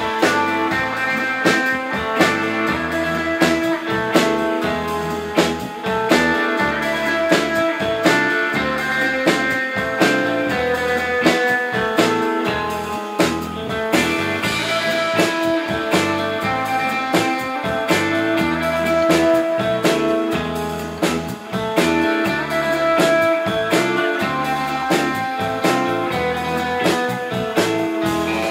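Live rautalanka (Finnish instrumental guitar rock): a solid-body electric guitar plays the lead melody over electric bass and a drum kit keeping a steady beat.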